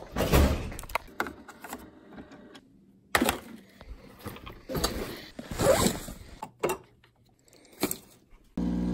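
A door thunking shut, then hands rummaging through a backpack: rustling, scraping and knocks in irregular spurts. A steady multi-tone hum starts abruptly just before the end.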